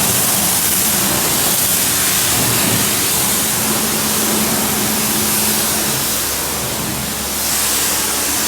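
Self-service car wash high-pressure wand spraying water onto a car: a loud steady hiss over the low hum of the pump, briefly easing about seven seconds in.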